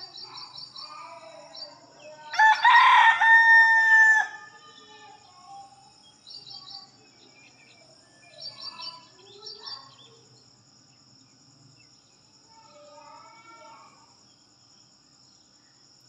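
A rooster crows once, a loud cock-a-doodle-doo lasting under two seconds, about two and a half seconds in.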